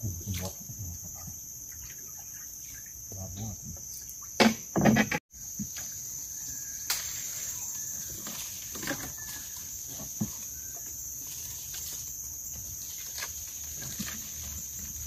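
Steady high-pitched insect drone of a tropical forest, with scattered short knocks and handling noises. There is a cluster of louder knocks just before the sound cuts out briefly about five seconds in.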